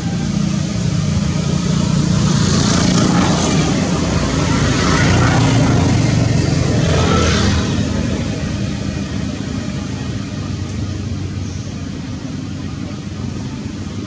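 Motor vehicle engine going past: a steady low rumble that swells for several seconds near the middle, then eases off.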